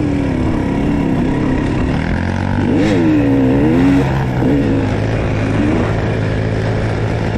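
Dirt bike engine running under load, revving up and back down once about three seconds in over a steady low engine drone.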